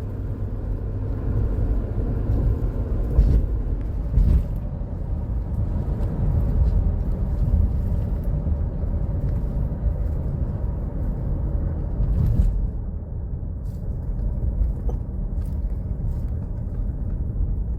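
Inside the cabin of a 2015 Chevrolet Tahoe with its V8 engine cruising at about 100 km/h: a steady low engine and road rumble, with a few brief knocks about three, four and twelve seconds in. The engine is under test for an intermittent misfire.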